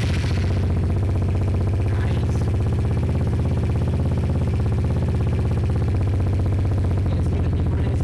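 Vespa GTS scooter's single-cylinder four-stroke engine idling steadily through a VRX stainless and carbon exhaust with its dB killer removed, giving a louder, deep, even pulsing exhaust note.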